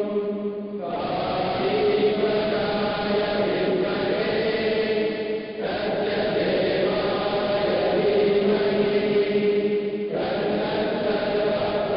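A group of voices chanting a devotional prayer in unison, in long held phrases of a few seconds each, a new phrase starting about a second in, again around halfway, and near the end.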